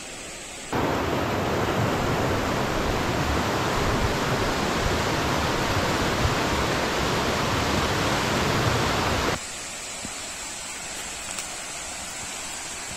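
Waterfall rushing: a steady wash of falling water. It jumps much louder and fuller about a second in and drops back to a quieter rush about nine seconds in.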